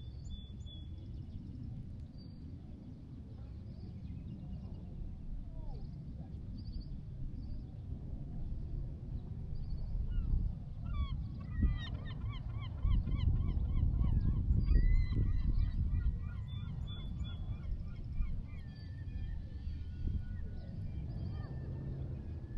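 Birds calling outdoors: a rapid run of repeated calls about halfway through, with more calls after it. Small birds chirp throughout, over a steady low rumble.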